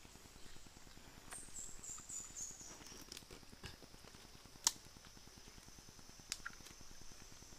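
A faint, high-pitched insect drone that steps down in pitch over a couple of seconds and then holds steady, with a few sharp clicks, the loudest about halfway through.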